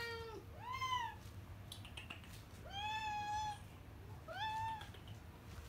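Hungry domestic cats meowing to be fed: the tail of one meow, then three more, each rising then falling in pitch, the middle one the longest.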